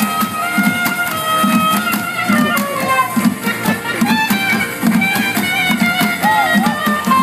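Street band music: a soprano saxophone plays a melody over a steady beat drummed on plastic barrels and drums.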